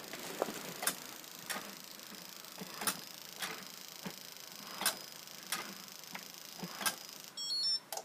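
Electrolux Trilobite 2.0 robot vacuum settling onto its charging dock: a run of sharp clicks, roughly two a second, over a steady running hiss. Near the end a short electronic beep sounds, and the running noise then stops.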